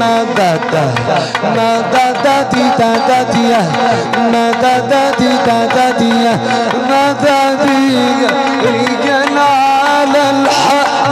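Egyptian folk ensemble playing: oud and melody notes, some held and some sliding, over a steady beat on a darbuka goblet drum and a riq frame drum.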